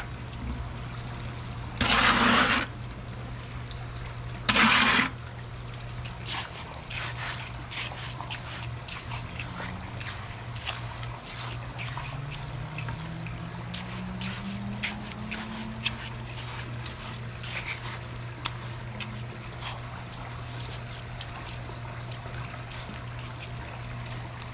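Wet concrete mix sliding out of a tipped plastic bucket into a hole in a pool deck in three heavy pours, the loudest about five seconds in. After that come soft, scattered scrapes and pats as gloved hands smooth the wet concrete, over a steady low hum.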